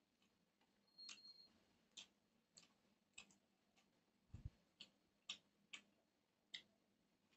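Faint sounds of eating rice by hand from a steel plate: scattered soft clicks about two a second as fingers work the rice and he chews, with one dull thump about four and a half seconds in.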